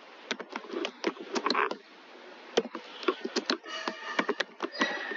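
Typing on a computer keyboard: an irregular run of key clicks.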